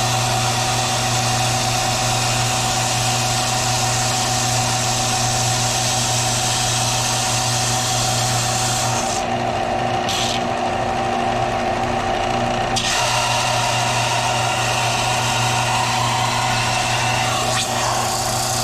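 Benchtop belt-and-disc sander running steadily while a hickory block is pressed against the moving belt, grinding it to fine dust. The motor hum carries on throughout; the rasping of wood on the belt stops for about four seconds midway, then resumes.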